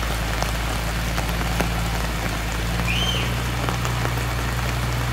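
Rain falling, a steady patter of drops close by, as on the umbrella overhead, over a steady low hum. A short high chirp sounds about three seconds in.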